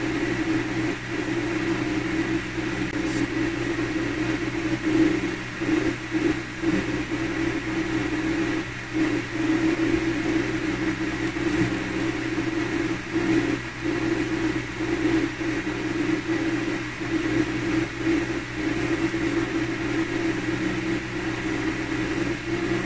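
A steady mechanical hum with a few fixed tones, the strongest low and droning, dipping briefly now and then.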